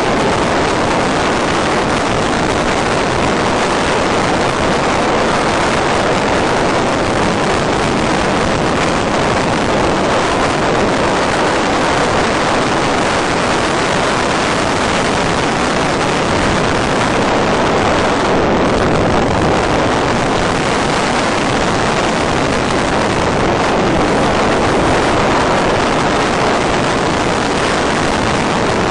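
Steady airflow rush over the onboard microphone of an FPV model plane gliding with its motor off, an even hiss with no motor note.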